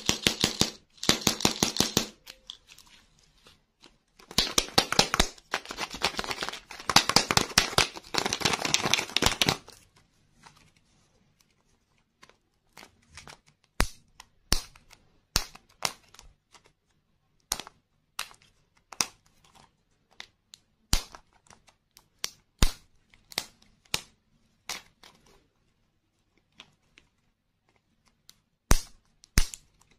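Candy packaging handled close to the microphone: rapid crinkling and crackling of wrapper in two stretches over the first ten seconds or so. Then scattered sharp clicks and snaps as the sticker label is peeled off a hard plastic lollipop capsule.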